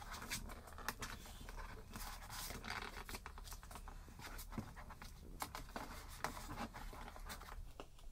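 A kraft-paper envelope being slid out of a translucent plastic document case and pushed back in, with scraping and rustling of paper on plastic and small handling clicks throughout.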